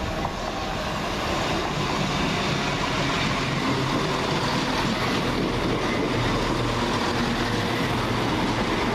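Class 170 Turbostar diesel multiple unit running into the station. Its engine and wheel noise grows over the first second or so, then holds steady.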